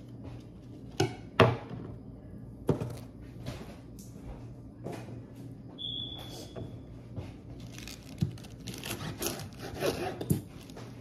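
Kitchen prep handling sounds: sharp knocks and clacks about a second in and again near three seconds, then a run of quick clicks and clatter in the last few seconds. A steady low hum runs underneath, and a brief high tone sounds about halfway.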